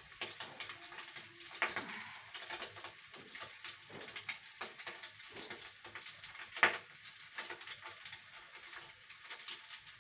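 Oil frying in a kadhai, a steady sizzle with many small crackles and pops, and a few sharper clicks. One click about two-thirds of the way through is the loudest.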